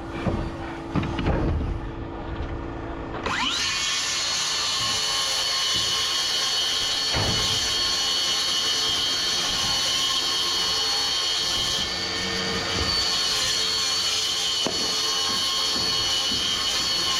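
A few knocks and handling thumps, then about three seconds in an electric power cutting tool spins up with a rising whine and runs steadily at full speed with a high-pitched whine, ready to cut.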